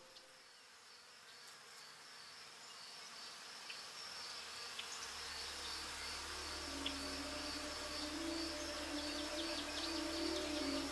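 Steady high chirring of insects. A low hum comes in about halfway, and soft sustained music tones fade in over the second half as the level rises.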